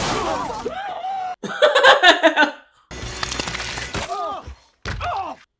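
Human voices laughing and crying out in several short bursts, each cut off sharply, the loudest about two seconds in.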